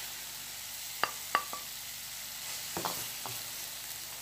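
Shredded coconut and sugar sizzling in a stainless steel pan as the syrup cooks nearly dry, stirred and scraped with a wooden spatula. A few sharp knocks of the spatula, the loudest about a second in and a couple more near three seconds.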